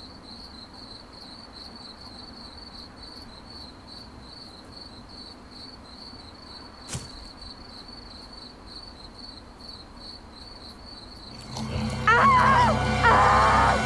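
Crickets chirping steadily in an evenly pulsing high trill, with a single sharp click about seven seconds in. Near the end a loud burst of music and a woman's screaming cries break in over it.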